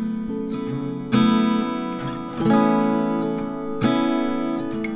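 Background music: acoustic guitar strumming chords, a new chord struck about every second and a half and left to ring.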